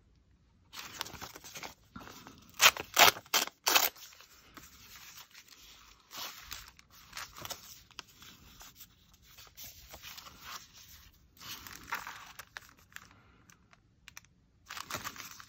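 Paper being torn by hand, with a cluster of short, sharp tearing strokes about three seconds in, followed by softer bursts of paper rustling and handling.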